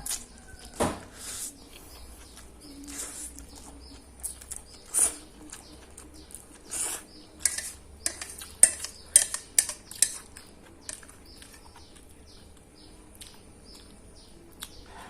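Cutlery clicking and scraping against a dish while eating fried instant noodles, a run of short sharp clicks that comes thickest and loudest about halfway through, then thins out.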